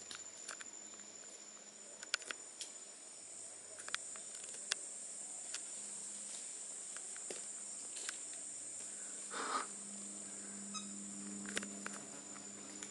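Steady high-pitched drone of rainforest insects, with scattered faint clicks and snaps and one short louder rustle about nine and a half seconds in.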